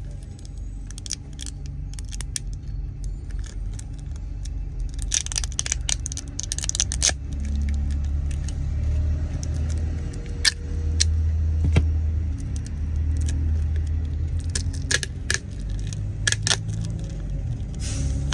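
Many small sharp clicks and taps of tools against a smartphone's parts, with a denser rattling cluster about five seconds in, over a low rumble.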